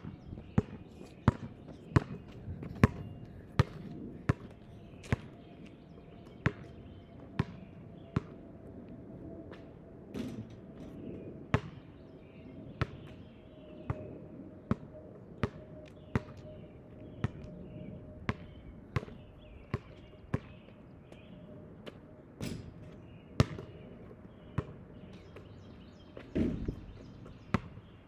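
Basketball dribbled on asphalt pavement, a steady bounce about every three-quarters of a second.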